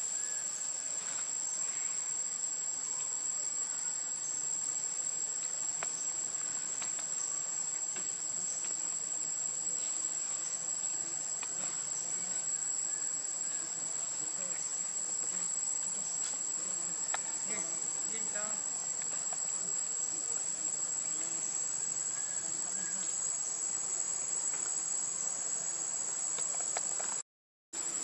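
Steady high-pitched drone of a forest insect chorus, with a few faint ticks and rustles over it. The sound drops out completely for a moment near the end.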